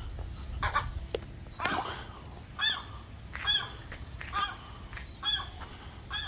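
Gull calling repeatedly with short, harsh alarm calls, about one a second, typical of a gull defending its nest or chick.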